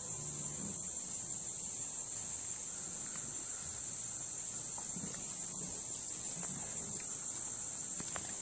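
Steady high-pitched chorus of insects, unbroken and even throughout.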